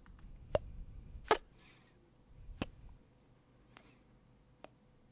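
Kissing sounds: five short, sharp lip smacks spaced about a second apart, the loudest a little over a second in and the last two fainter.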